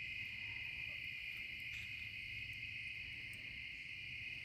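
Chorus of insects in the evening forest, one steady high-pitched trill that holds without a break.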